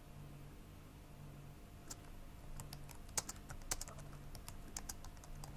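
Typing on a laptop keyboard: irregular key clicks that start about two seconds in, some struck harder than others.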